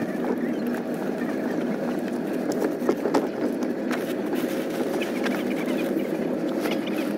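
Rustling and soft knocks of bed linen, a pillow being pushed into its pillowcase, loudest about three seconds in. Underneath is the steady noise inside a sleeper-train carriage.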